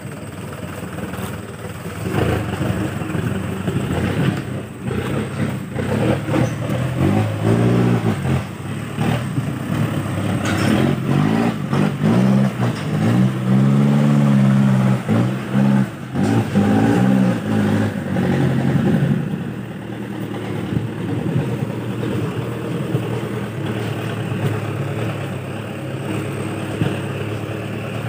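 Mitsubishi Canter dump truck's diesel engine revving hard as the truck works through deep mud, its pitch rising and falling repeatedly through the middle, then settling to steadier running near the end.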